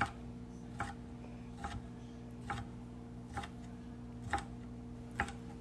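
Chef's knife chopping red bell pepper on a wooden cutting board: single sharp knocks about once a second, over a faint steady hum.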